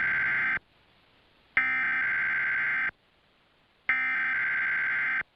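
Emergency Alert System SAME header: three identical digital data bursts, each a little over a second long with about a second's gap between them. The first is already under way and stops about half a second in. They are sent by a Digital Alert Systems DASDEC-III encoder and encode the alert, here a required weekly test.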